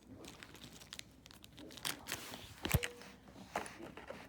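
Quiet handling of plastic packaging and small plastic toy pieces: intermittent crinkling and light ticks, with one sharper click about two-thirds of the way through.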